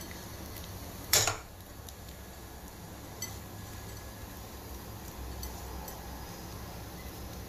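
Kitchenware clattering once against a steel pan about a second in, then a few faint clicks as soaked flattened rice is tipped in from a glass bowl, over a low steady hum.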